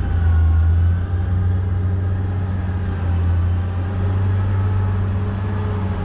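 Diesel engine of a Sany truck-mounted concrete pump running with a steady low drone. A few faint, wavering whining tones sit above it.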